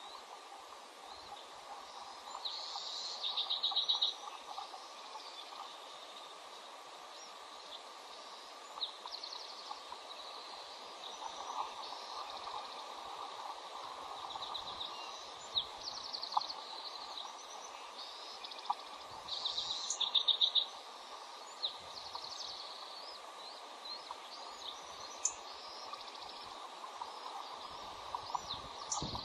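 Bald eagles calling at the nest: high-pitched chattering runs of rapid piping notes, the two loudest about three seconds in and about twenty seconds in, with scattered short chirps between. A steady hiss runs underneath.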